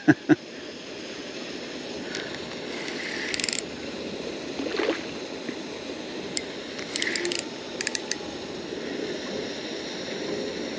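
Fishing reel ratcheting in several short bursts of clicking, over a steady hiss, while a hooked carp is being played.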